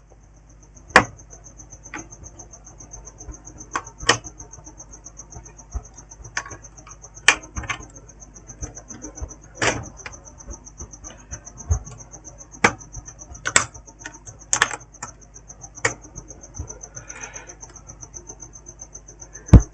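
Small tools or probes clicking and tapping irregularly, every second or two, while the laptop motherboard is handled and checked on the repair bench. A faint, steady, high-pitched pulsing whine runs underneath.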